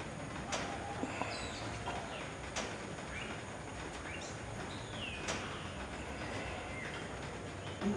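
Outdoor ambience: a steady noise bed with small birds chirping now and then, including one call that slides downward about five seconds in. A few sharp clicks are heard, about half a second, two and a half seconds and five seconds in.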